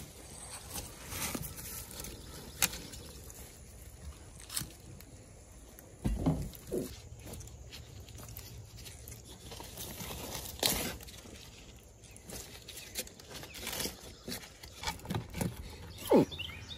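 Faint rustling with scattered sharp clicks and knocks, a few seconds apart, as a black and white tegu is fed chicken neck from metal tongs among leaf litter.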